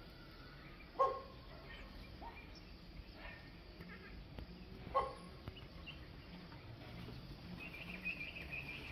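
Trumpeter hornbills calling: two loud short nasal calls about four seconds apart, with fainter calls between them. A higher chattering call follows near the end.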